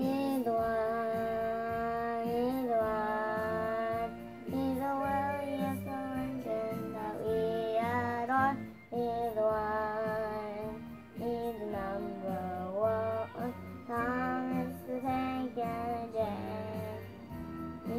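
A young boy singing a song, with long held notes that slide up and down in pitch, broken by short breaths.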